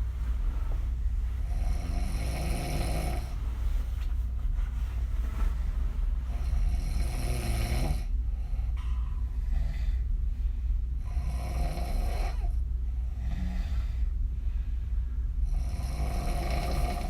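A woman snoring open-mouthed while lying on her back, a snore about every four to five seconds, four in all, over a steady low hum.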